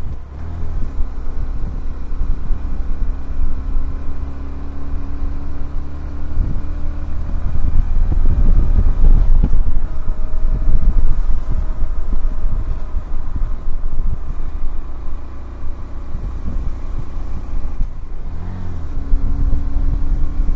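Honda CBF125R's 125 cc single-cylinder engine running under way, with wind buffeting the microphone. The engine note rises twice, about four seconds in and again near the end, and heavy wind rumble covers it through the middle.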